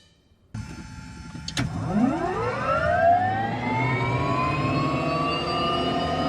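Allison turbine engine of a Soloy-converted Cessna U206G starting up: a short click, then a whine that rises steeply in pitch and levels off as the turbine spools up.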